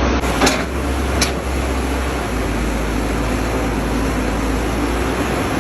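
Heavy earthmoving machinery (excavator and bulldozer diesel engines) running steadily with a low rumble, with two sharp knocks in the first second or so.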